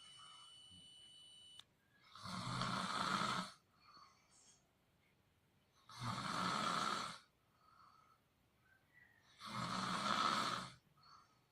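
A sleeping person snoring: three loud snores, each about a second and a half long, coming roughly every three and a half seconds, with faint quieter breaths between them.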